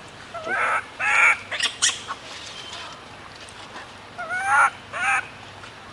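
Baby macaque crying: short, high-pitched wailing calls whose pitch rises and falls, three in quick succession in the first two seconds and two more a little past the middle. These are an infant's distress cries for its mother.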